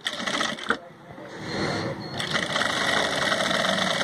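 Electric single-needle lockstitch sewing machine running a seam through folded cotton fabric. There is a short click near the start, then the machine picks up speed about a second in and stitches steadily and fast.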